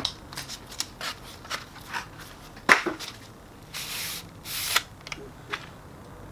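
Cardboard packaging and a cardboard end piece rustling, scraping and clicking as a new copier charge roller is unpacked and handled, with a sharp click about two and a half seconds in and two short scraping slides around four seconds in.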